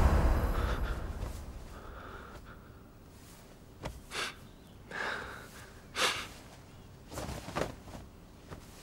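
Background music fades out, then a man breathes hard in about six short gasps and breaths from about four seconds in, as if just jolted awake from a dream.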